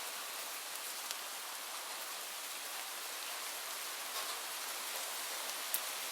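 Light rain falling steadily, a dense even hiss with occasional sharper drop ticks, one standing out near the end.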